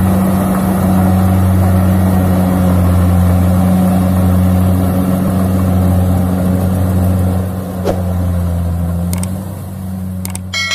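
Rice combine harvester's engine running at a steady speed with a deep, even hum, with a few sharp clicks in the last few seconds. A bright chime starts ringing at the very end.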